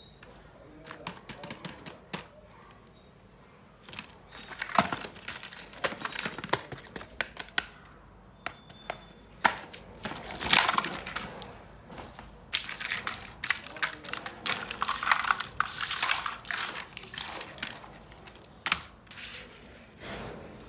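Small plastic toy pieces and packaging being handled: quick irregular clicks and taps with crinkling, busier after the first few seconds.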